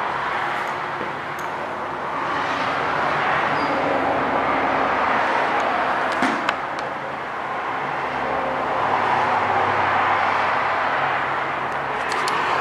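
Road traffic passing: a rushing noise of cars going by that swells and fades twice. A couple of short sharp clicks come about halfway through.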